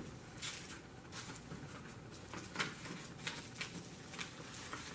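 Faint, irregular rustling and creasing of a sheet of paper being folded by hand.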